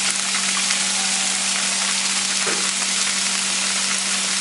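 Crumbled firm tofu sizzling steadily in hot olive oil in a frying pan as more is broken in by hand. A steady low hum runs underneath.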